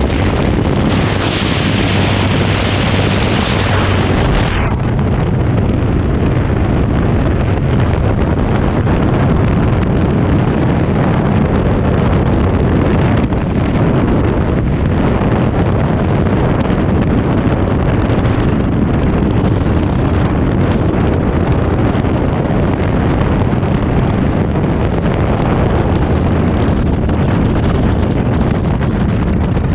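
Open-door noise of a light aircraft in flight, engine and slipstream rushing, for the first four and a half seconds; then a steady, loud rush of freefall wind buffeting the camera microphone.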